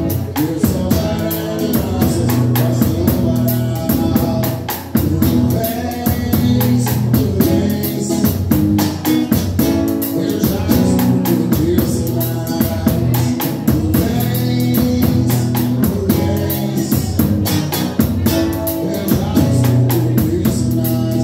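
Live band music: a drum kit played with a steady, even cymbal beat, under guitar and a man singing.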